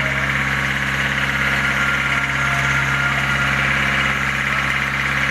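Fire truck's engine idling steadily, a constant low hum.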